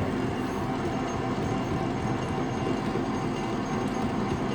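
Metal lathe running with the tool hand-fed into a welded-up dough mixer hook shaft, taking light cuts off the weld's high spots: a steady machine noise with a faint steady whine.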